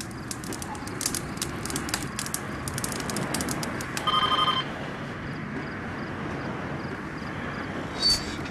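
Foley effects over a steady background hiss: a quick, irregular run of sharp clicks, then about four seconds in a short, loud electronic beep lasting half a second, and a brief high chirp near the end.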